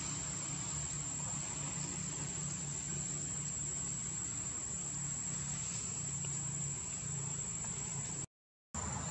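Forest insects droning, a steady high-pitched whine over an even hiss, with a low hum underneath. The whole soundtrack cuts out for about half a second near the end.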